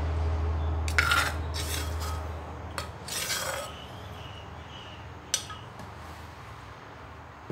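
A plastic spoon scraping the inside of a clay mortar, a few short rasping strokes in the first four seconds, then one sharp knock a little past five seconds in.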